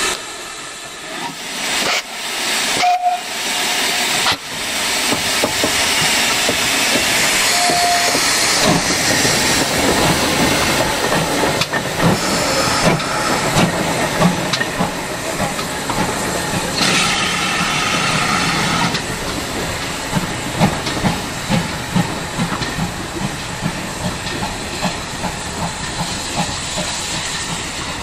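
GWR 5101-class Large Prairie 2-6-2T steam tank locomotive 5199 starting away: steam hissing, then rhythmic exhaust beats that quicken as it gets under way. A steam whistle sounds for about two seconds past the middle.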